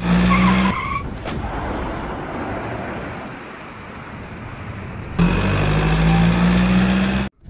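Cartoon sound effects: a truck engine running with a steady tone, then a long rushing whoosh of a missile launching that slowly fades, then the engine running again about five seconds in.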